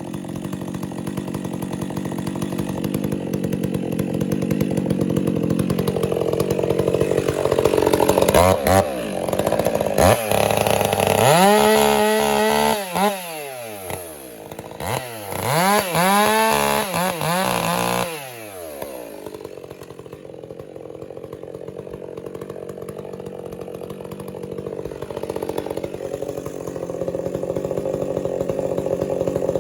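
Stihl MS 400 C two-stroke chainsaw cutting through red oak under load. About a third of the way in, it revs up and down several times in quick succession for roughly ten seconds, then settles back into a steady cut.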